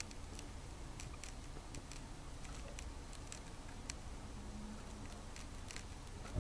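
Pet budgies making scattered light clicks and ticks in their cage, several a second and irregular, over a low steady hum.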